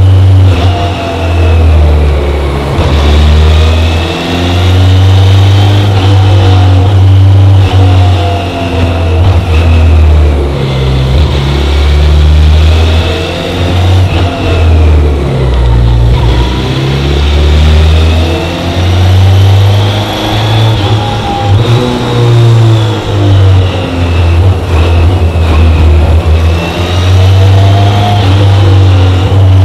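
BMW K1100LT motorcycle's inline four-cylinder engine under way, its pitch rising and falling again and again as the rider accelerates and eases off. It is heard up close from the bike itself.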